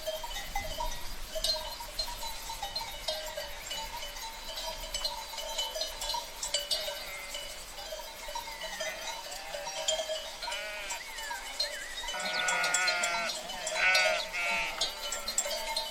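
A herd of sheep with a steady clinking of small bells throughout. From about two-thirds of the way in, several sheep bleat with wavering, shaky calls, overlapping and louder near the end.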